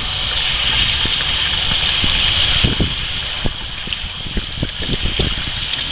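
Running water rinsing a freshly cleaned trout, a steady rush with a few short knocks as the fish is handled.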